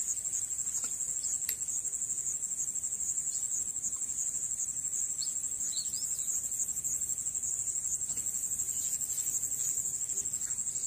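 Steady high-pitched insect chorus, a continuous fast-pulsing trill that runs unbroken, with a few faint bird chirps about midway.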